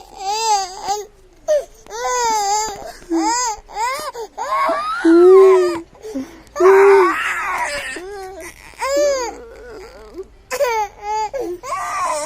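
A young child crying: a string of high, wavering wails with short breaks between them, the loudest about five and seven seconds in.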